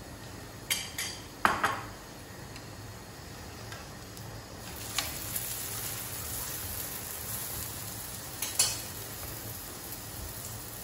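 Food frying and sizzling in a hot pan, with a few sharp clinks of a utensil against the pan, the loudest about one and a half seconds in. The sizzle gets louder about halfway through.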